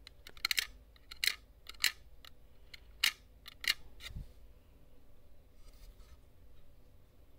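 A knife blade scraping and clicking against the contact of a computer mouse's left-button microswitch: about half a dozen short, sharp scrapes over the first four seconds, then only faint ticks of handling. The contact is being scraped clean of the dirt that is keeping the left button from working.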